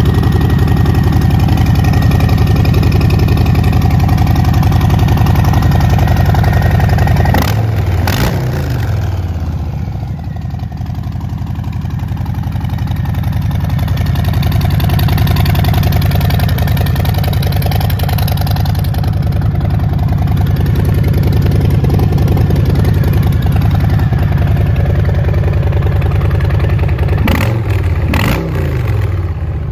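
Harley-Davidson Low Rider's 1745 cc Milwaukee-Eight 107 V-twin idling, with the throttle blipped twice about eight seconds in and twice again near the end, the revs falling back to idle after each blip.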